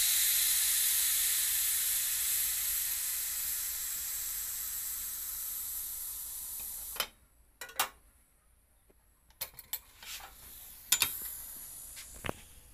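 Pressure cooker venting steam in a steady hiss as the whistle weight is held up with metal tongs; the hiss slowly fades and stops abruptly about seven seconds in, once the pressure is gone. Then several sharp metallic clicks of the tongs against the steel lid and weight.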